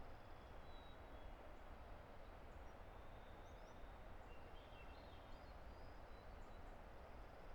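Faint, steady rush of a distant river, with scattered high bird chirps and thin whistled notes over it.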